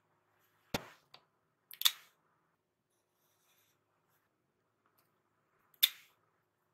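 Sharp plastic clicks of Faber-Castell metallic highlighters being handled, capped and set into their plastic case: one a little before a second in, a double click near two seconds, and one more near six seconds, with faint handling sounds between them.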